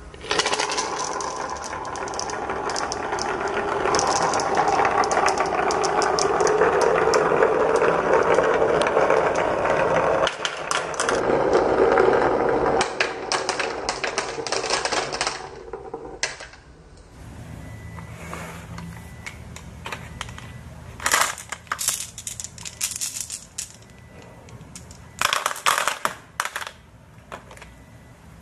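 Many marbles rolling and clattering down a wooden marble run: a dense rolling rumble thick with clicks for roughly the first half, then quieter stretches broken by short bursts of clicking as smaller groups of marbles knock against the wood and each other.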